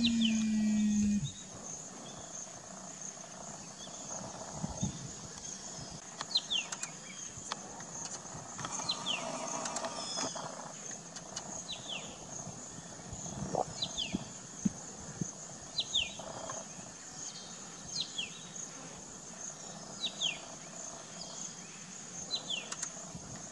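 Outdoor natural ambience: insects keep up a steady high-pitched buzz while a bird repeats a short, descending high whistle about every two seconds. A loud, steady low hum sounds for the first second or so and then stops.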